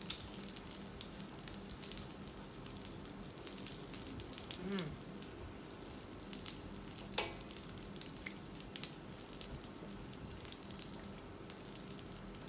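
Pork sizzling on a tabletop mookata grill pan: a steady frying hiss with fat crackling in many small, irregular sharp ticks.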